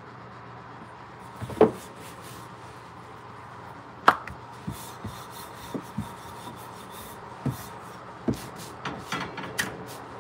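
Wooden rolling pin rolling out flatbread dough on a marble board: rubbing over a steady low hum, broken by a string of wooden knocks and clacks against the board. The two loudest knocks come about one and a half and four seconds in, with smaller ones following.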